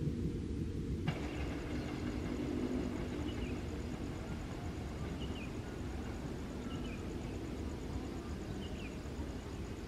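Steady low engine rumble, slowly fading, with a few faint bird chirps.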